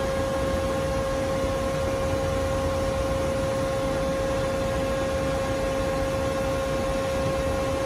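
Bullard 46-inch Dyn-Au-Tape vertical turret lathe running under power: a steady mechanical hum with a constant whine over it.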